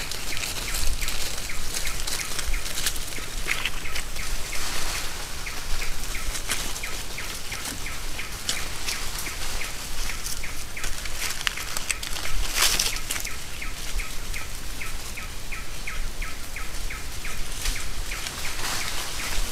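Tropical forest ambience: a regular train of short high chirps over a steady insect-like hiss. Now and then comes a burst of rustling in dry leaf litter as southern pig-tailed macaques move about near the ground, the loudest about twelve seconds in.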